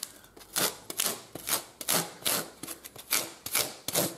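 Large rasp being pushed in quick, even strokes across a saddle knee roll, about two strokes a second, using its coarse outside teeth to take off a lot of material and knock down lumps.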